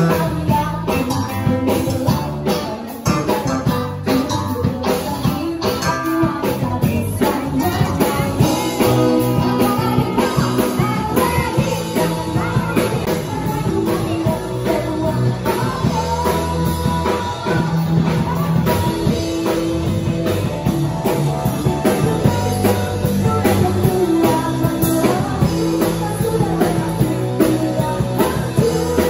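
Live band playing a rock-style song: a singer over drum kit and guitar, amplified through the venue's PA.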